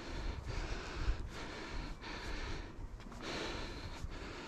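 A hiker breathing hard and fast in quick, even breaths, huffing and puffing from the exertion of climbing steep stairs.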